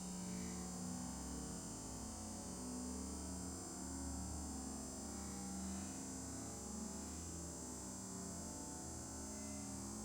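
Faint background music with slow, sustained low notes that change every second or two.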